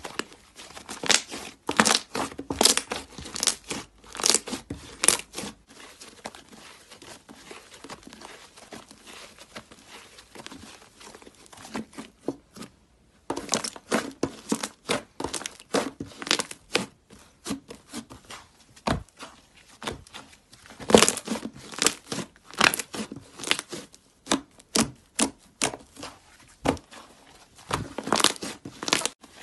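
Thick white slime squeezed, pressed and torn apart by hand, giving clusters of sharp clicks and pops. The clicks are sparse and faint through the middle stretch, then come thick again.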